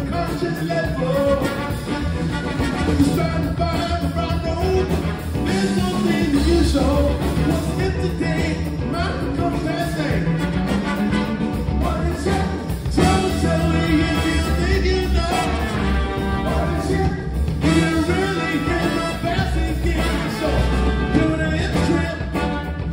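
Live funk band playing with a horn section of trumpet, trombone and sax over electric bass, drums and guitars, with a male lead vocal.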